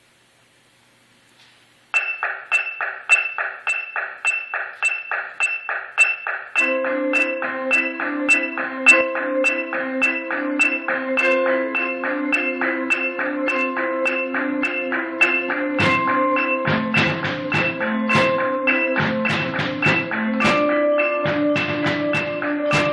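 A percussion front ensemble of marimbas and other mallet keyboards starts playing about two seconds in, a quick repeated high mallet figure. About a third of the way in, lower keyboard parts with held notes join, and from about two-thirds in deep low notes are struck under the texture.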